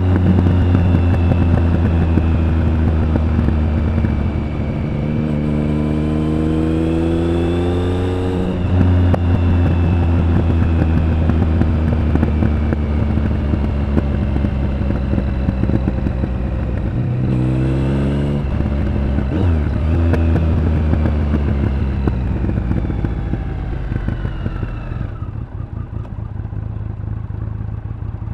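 Triumph Speed Triple 1050's inline three-cylinder engine and exhaust under way. The pitch climbs under acceleration and drops sharply at gear changes about 8 seconds in and again about 18 seconds in, then the engine eases off and gets quieter near the end.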